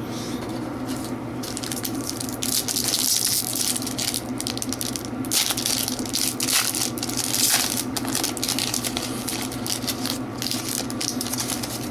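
Foil wrapper of a hockey card pack crinkling and crackling as hands tear it open.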